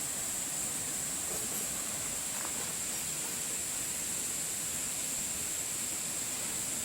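Steady rushing of a valley stream, an even noise that never changes, with a steady high-pitched hiss above it.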